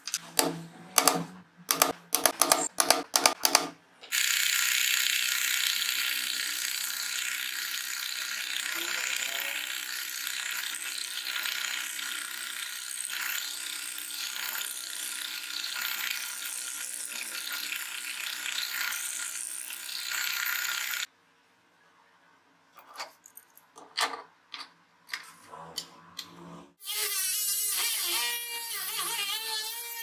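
A quick run of clicks and knocks, then an electric drill runs steadily for about seventeen seconds, boring holes with a twist bit into a clamped hardwood block. After a pause with a few knocks, a drill fitted with a small circular cutting disc starts up near the end, its pitch wavering as it cuts slots in the wood.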